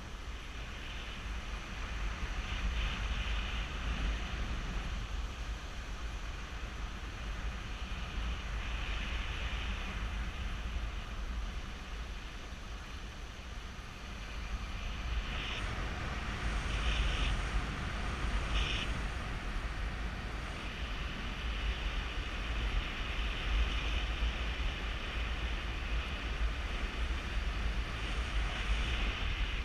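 Wind rushing over a GoPro Hero3's microphone in flight under a paraglider: a steady rumbling buffet with an airy hiss, growing louder about halfway through and swelling and easing in gusts.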